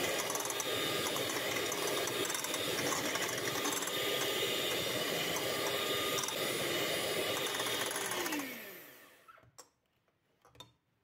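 Electric hand mixer whirring steadily as its wire beaters whip eggs to a foam in a glass bowl. About eight seconds in it is switched off and its pitch falls as the motor winds down, followed by a few light knocks.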